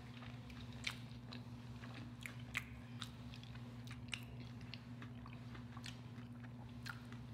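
Faint closed-mouth chewing close to the microphone, with soft scattered mouth clicks over a steady low hum.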